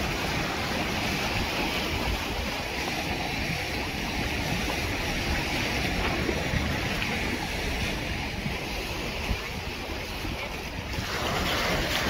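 Mediterranean surf washing against a shore of large piled rocks, a steady rushing noise, with wind blowing across the microphone.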